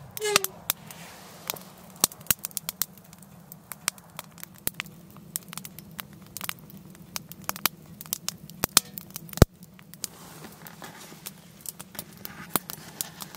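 Firewood crackling in a small steel tent wood stove, with irregular sharp snaps and one loud pop about nine seconds in.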